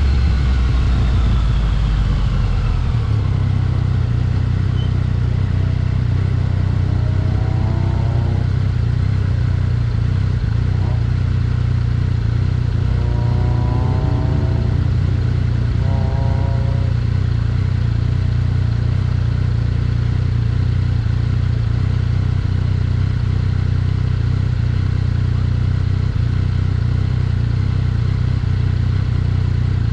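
Yamaha XSR900 three-cylinder motorcycle being ridden, its engine note falling as it slows at the start, then running steadily under a heavy low rumble. A few brief rising whines come about 8, 13 and 16 seconds in.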